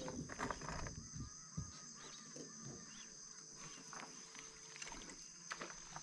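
Quiet river ambience: a steady high insect drone throughout, with a few light knocks from the boat hull in the first second or so and faint animal calls.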